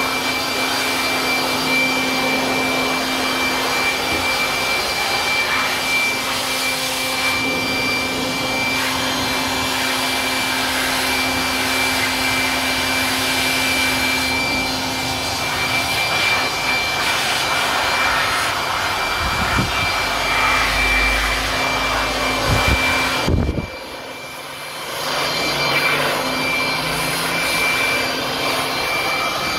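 Corded handheld electric air blower running steadily, blowing air over a washed mountain bike to dry it. Near the end its noise drops for a second or so, then picks up again.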